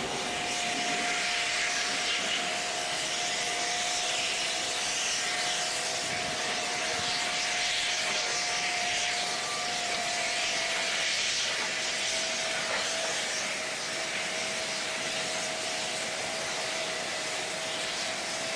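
Steam hissing steadily from a standing 4-8-2 steam locomotive, with a steady whistling tone underneath that drops slightly in pitch past the middle.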